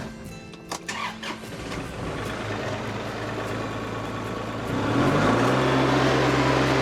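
Kubota tractor's diesel engine starting and settling into a run, then throttled up about five seconds in, its pitch rising slightly and holding steady at higher revs.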